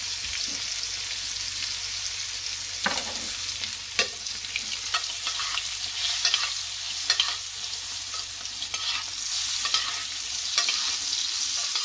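Butter sizzling and crackling in a tilted stainless steel skillet as a spoon bastes a seared steak. The spoon scrapes and clinks against the pan now and then.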